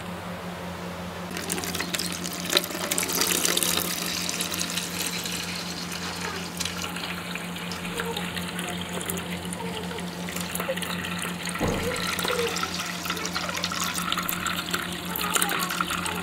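Water pouring out of a hose and splashing as aquarium water is drained into a plastic bucket, starting about a second in, over a steady low hum.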